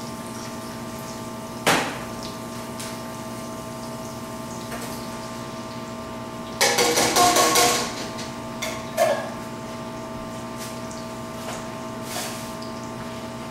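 Kitchen clatter over a steady hum: a single knock about two seconds in, a quick burst of rattling and clinking of pans or utensils about halfway through, then a few lighter clicks.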